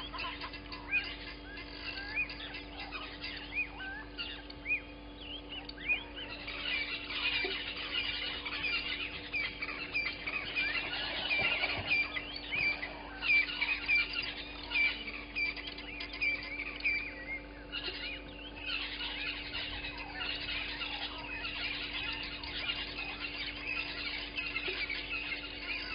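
Wild birds calling in a busy chorus: many short, quick chirps and whistles overlapping one another, with a brief lull about two thirds of the way through.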